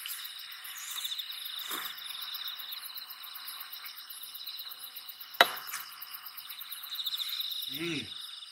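Grass insects chirping in a steady, pulsing high trill, with a single sharp clink of utensils about five seconds in and a brief low vocal hum near the end.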